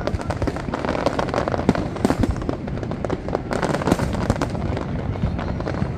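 Aerial fireworks display: a dense, continuous run of bangs and crackles from many shells bursting in quick succession.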